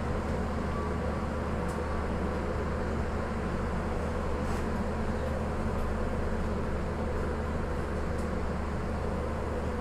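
A passenger train of stainless-steel coaches rolling slowly into the station on the next track, a steady rumble with a low hum and a few faint clicks.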